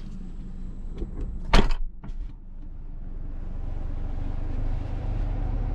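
A car door shuts with one solid knock about a second and a half in, after a few light clicks. Then comes a steady low rumble inside the closed Tesla Model S cabin, growing slowly louder: the air-conditioning fan left running in dog mode.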